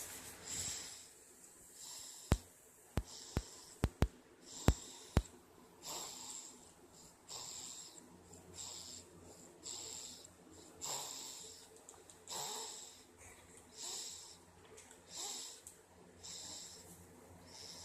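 Snoring muffled against an arm: short, breathy snores about every second and a half. A few sharp clicks come during the first five seconds.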